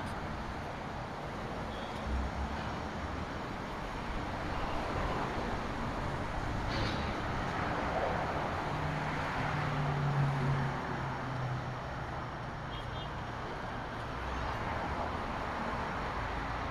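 Road traffic on a multi-lane city street: cars passing in a steady wash of tyre and engine noise. It swells as a vehicle goes by near the middle.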